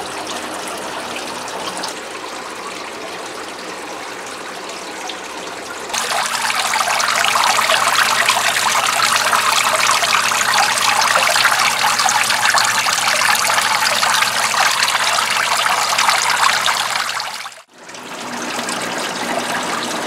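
Water trickling and splashing steadily down from a DIY evaporative cooler's pump-fed pad into its plastic water tote, over the box fan's steady running. It grows louder about six seconds in, then drops out briefly near the end.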